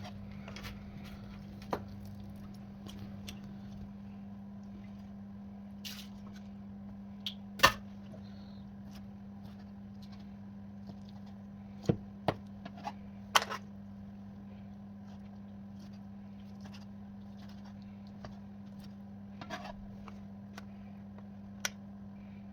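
Scattered sharp clicks and knocks, a few much louder than the rest, over a steady low electrical hum, typical of utensils and dishes being handled in a kitchen.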